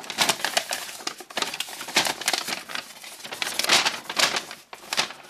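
A folded paper instruction sheet rustling and crinkling as it is unfolded and opened out by hand, a fast run of crisp crackles that dies away near the end.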